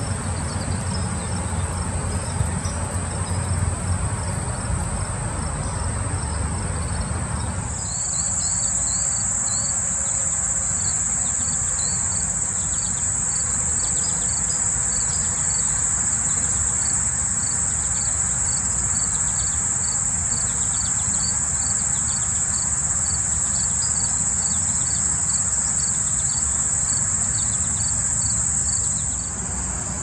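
Crickets and other field insects trilling in a steady high-pitched drone, joined about eight seconds in by a second insect chirping in a regular pulse, more than once a second.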